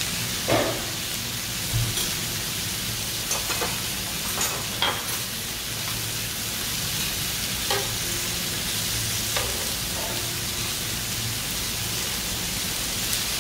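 Pork belly slices and minari frying on a tabletop grill pan with a steady sizzle, broken by a few short clicks and knocks as the food is turned with tongs and chopsticks.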